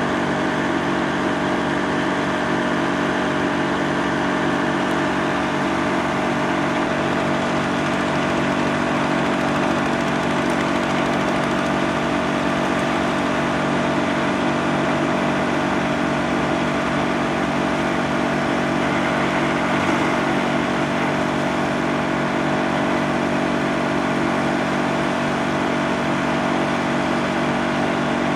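Wood chipper running steadily, with an even engine-driven drone that holds one pitch. A slight extra rasp comes in about two-thirds of the way through.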